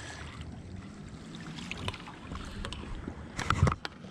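Steady low rumble of wind and water around a small fishing boat, with scattered small clicks and a few louder knocks about three and a half seconds in.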